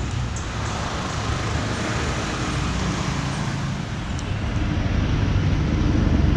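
Steady running noise of a vehicle, with a low rumble that builds and grows louder about four and a half seconds in.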